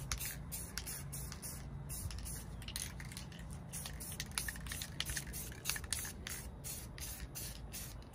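Krylon Fusion aerosol spray paint can hissing in short, repeated bursts, laying on light coats of paint.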